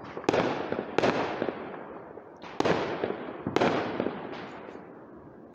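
Aerial fireworks shells bursting overhead: four sharp bangs a second or more apart, each fading in a long echoing rumble, with a few faint crackles near the end.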